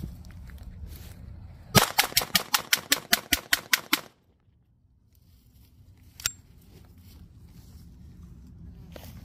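Semi-automatic pistol fired in a rapid string of about a dozen gunshots, roughly six a second, as a function test after cleaning. About two seconds later comes one more, quieter sharp report.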